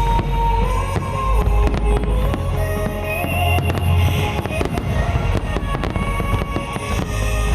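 Fireworks display: shells bursting in rapid succession with dense crackling and deep booms, over music played on loudspeakers.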